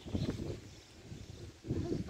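Wind rumbling on the microphone in uneven gusts, strongest at the start and again near the end.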